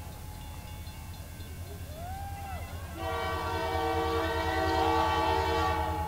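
Diesel locomotive air horn sounding one long blast of about three seconds, starting about halfway through, over a low steady rumble.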